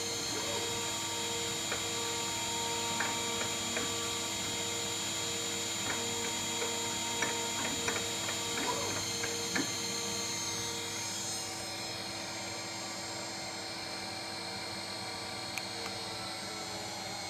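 A 2.2 kW high-speed milling spindle running at just under 14,000 rpm with a steady whine while it drills 1 mm holes, over the rattling of the mill's ordinary milling head. Light clicks come and go through the first ten seconds, and a pulsing hum stops about eleven seconds in.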